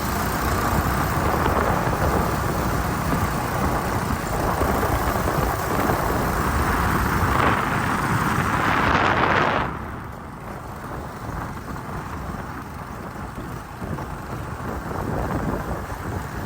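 Honda XRM motorcycle riding, with engine and road noise and wind buffeting the microphone. The noise drops sharply about ten seconds in, as the bike slows down.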